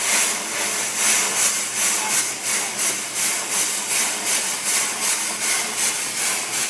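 Steam engine running, its exhaust chuffing in an even rhythm of hissing puffs, roughly two to three a second.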